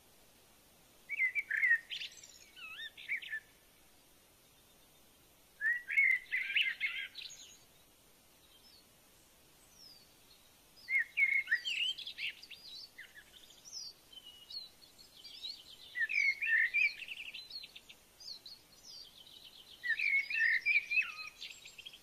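Japanese white-eye singing: about five bursts of high, quick twittering warble with fast trills, each lasting a couple of seconds, with short pauses between them.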